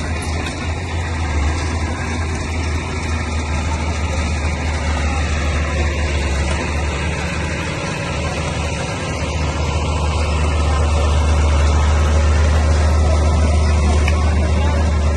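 Heavy earthmoving machine's diesel engine running steadily with a deep low hum, growing louder about ten seconds in.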